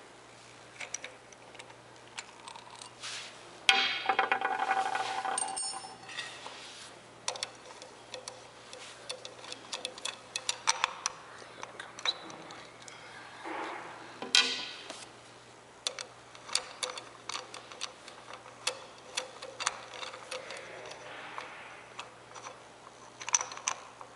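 Hand tools working on oil filter cover bolts: irregular ratchet clicks and small metal clinks of socket and bolts, with a louder, busier stretch of about two seconds starting some four seconds in.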